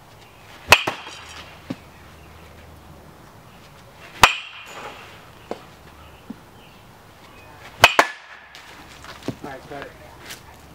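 Metal baseball bat hitting balls off a batting tee: three sharp ringing cracks a few seconds apart, with a few fainter knocks between.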